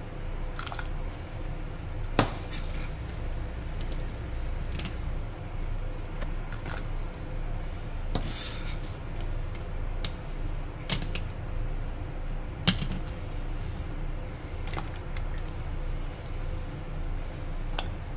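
Metal spoon clinking and knocking against a stainless steel saucepan as cubed zucchini is dropped into boiling water: about a dozen irregular clinks, the sharpest about two seconds in and again around eleven and thirteen seconds, with a short hissy rush around eight seconds in. Underneath runs a steady low rumble.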